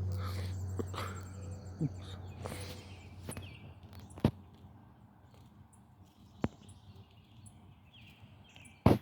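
Distant airplane engine droning low and steady, fading over the first few seconds, with faint birds chirping and a few sharp clicks.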